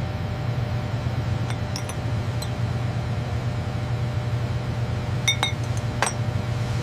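Steady low machinery hum with a few sharp, ringing clinks scattered through it, two close together about five seconds in.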